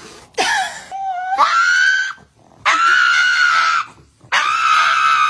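A pug screaming in three long, high-pitched cries, each over a second, the first rising in pitch.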